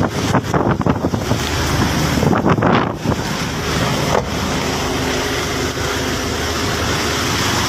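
Strong wind buffeting the microphone over rough sea, with a fishing boat's engine running steadily underneath. The wind is gusty for the first three seconds or so, then settles into a steadier rush.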